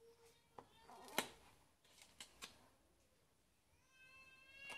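Thick cardboard flaps of a lift-the-flap board book being handled: a few soft clicks and rustles, with a sharp snap about a second in as a flap is lifted. Near the end a long, steady, high-pitched vocal call begins.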